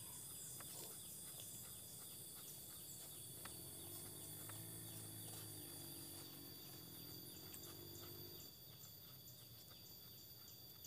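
Faint, steady high-pitched insect chorus with a few soft clicks. A faint low hum comes in about four seconds in and fades out a little past eight seconds.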